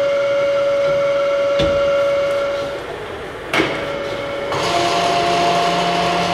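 Laboratory materials-testing machine running with a steady, high machine whine, and one sharp knock about one and a half seconds in. After a click near the middle, a different machine whine with a hiss starts up.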